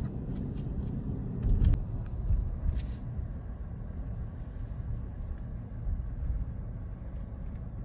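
Steady low rumble of a car driving, heard from inside the cabin, with a couple of brief clicks in the first three seconds.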